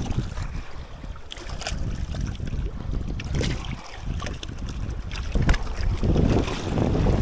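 Wind buffeting the microphone in uneven gusts, swelling strongest near the end, with scattered light clicks and taps.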